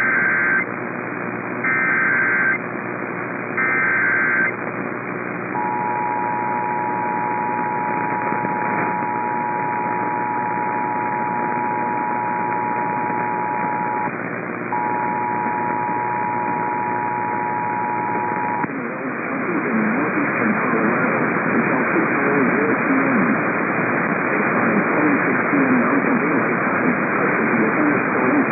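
Emergency Alert System alert over a narrow-band radio receiver: three short bursts of SAME digital header tones, then the steady two-tone attention signal held about thirteen seconds with a brief dropout, opening a tornado warning. Radio static hiss follows after the tone stops.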